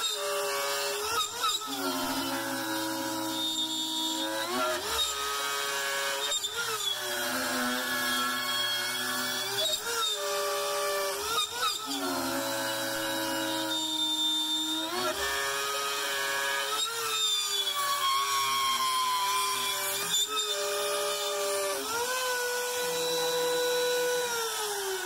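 Makita trim router on a benchtop CNC machine cutting a deep pocket in wood with a large roughing bit: a steady motor whine that sags in pitch every couple of seconds and recovers as the bit bites, the router bogging down at the limit of its power on a 3/4-inch-deep cut. Near the end the whine falls away as the router spins down.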